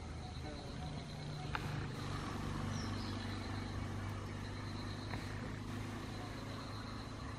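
A steady low engine drone, swelling slightly a couple of seconds in, with a faint pulsing high-pitched trill in the background and a single sharp click about a second and a half in.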